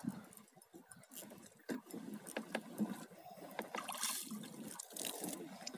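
Faint water splashing and sloshing as a hooked squid is reeled in to the surface, with a few light clicks.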